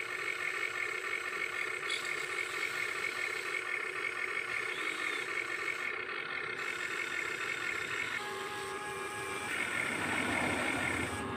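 Amewi radio-controlled excavator working its boom and bucket: its electric motors whine steadily, the pitch pattern changing about eight seconds in and again near the end as a different arm function runs, with a louder stretch around ten seconds as the bucket curls out of the snow.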